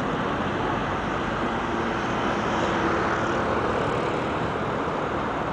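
Steady road traffic noise: a continuous rushing rumble of passing vehicles, with a faint hum in it.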